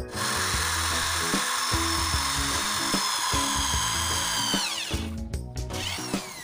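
Electric drill boring into the end of a block of soft albasia wood: the motor runs at a steady high whine, then winds down near the end. Background music plays underneath.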